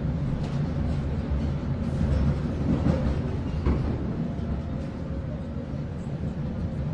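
Steady rumble of a passenger train car running, heard from inside the car, with a faint steady hum over it.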